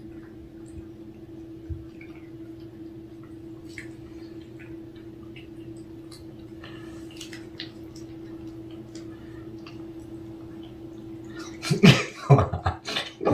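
Cats licking a liquid cat treat (churu) from a squeeze tube: scattered faint wet smacking clicks, over a steady hum. Near the end a few much louder, sudden sounds break in.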